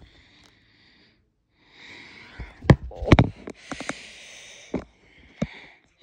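Handling noise of a phone camera: several sharp knocks and taps, from about two and a half seconds in, over a soft breathy hiss.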